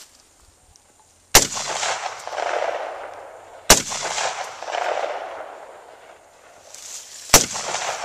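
AR-15 rifle firing three single shots, about two and a half then three and a half seconds apart. Each sharp crack is followed by a long echo that dies away over a second or more.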